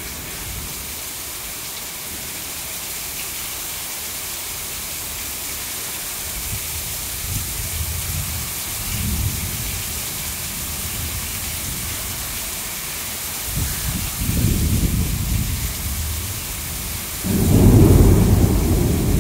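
Heavy rain falling in a steady hiss, with low rumbles of thunder coming and going. The loudest rumble starts suddenly near the end.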